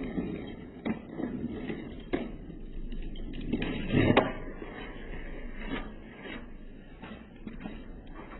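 Skateboard wheels rolling on pavement, with several sharp clacks of the wooden board, the loudest about four seconds in.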